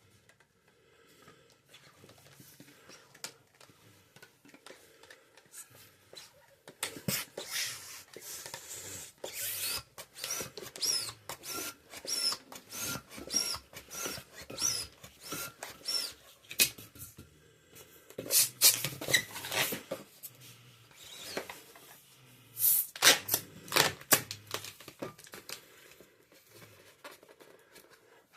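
Latex twisting balloons being handled and pumped up: rubbing, crinkling and clicking, with short high rubber squeaks, after a few quiet seconds.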